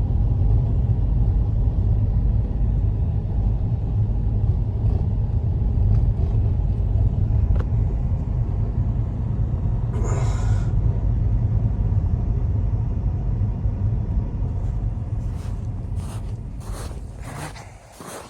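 Strong blizzard wind rumbling deep and steady on the microphone, with a short hiss about ten seconds in. The wind dies away near the end as a run of short scuffs begins.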